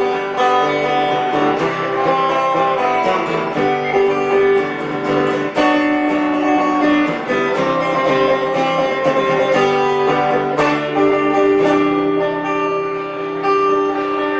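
Guitar playing an instrumental passage of a folk ballad, picked and strummed chords ringing on with no singing.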